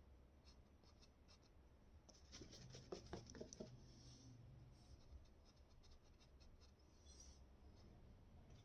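Faint scratches of a paintbrush dabbing oil paint onto canvas, with a brief cluster of louder scrapes and taps about three seconds in, over a low room hum.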